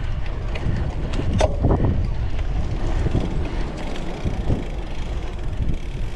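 Cyclocross bike being ridden over a dirt course: a steady rumble of wind on the microphone and tyres on the ground, with scattered short knocks and rattles from the bike over bumps.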